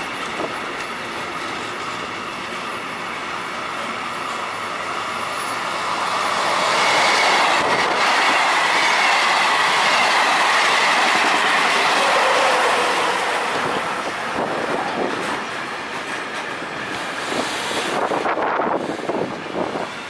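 Intermodal freight train of truck trailers on low wagons rolling steadily past, wheels clicking over the rail joints. From about six to thirteen seconds in, a regional passenger train passes close on the near track, louder, with a whine that falls in pitch as it goes by. A few sharp clunks come near the end.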